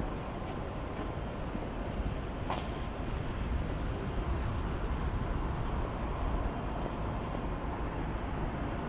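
Steady low rumble of distant city traffic and urban background noise.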